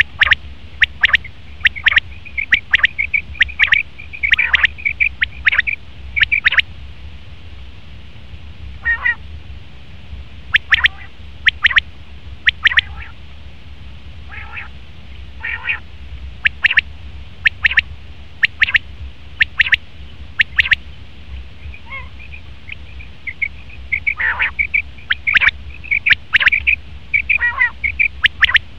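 Male common quail calling: short, sharp, high notes repeated in quick runs, with a few brief pauses between runs.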